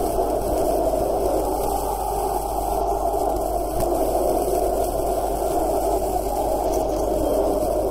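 Football crowd in a stadium stand: a steady, muffled din of many voices, with no single shout or chant standing out.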